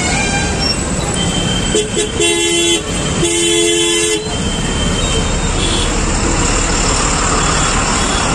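Street traffic running steadily. A vehicle horn honks twice about two seconds in, a short toot and then a longer one of about a second.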